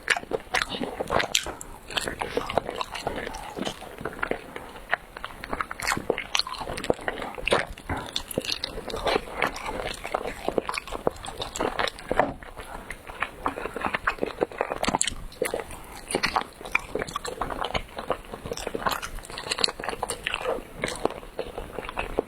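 Chewing chewy rice cake close to the microphone, an unbroken run of quick mouth clicks and smacks.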